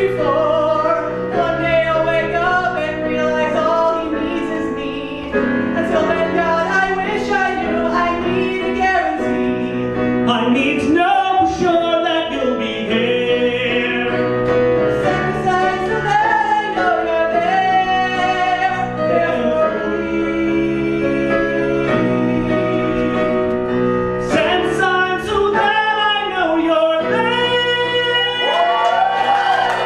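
A man and a woman singing a musical-theatre duet over instrumental accompaniment.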